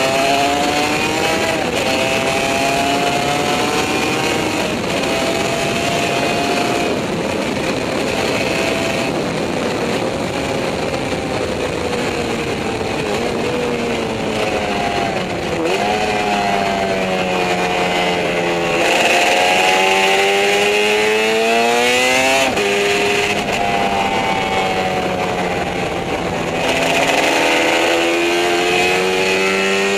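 Yamaha 750 two-stroke racing motorcycle heard from on board at racing speed: the engine note climbs under acceleration and drops sharply at each gear change, several times. Heavy wind rush on the microphone runs throughout, and for several seconds in the middle the engine fades under it.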